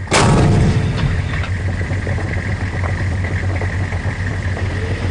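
A tank's main gun firing once, a single sharp blast just after the start, followed by the tank's engine running steadily.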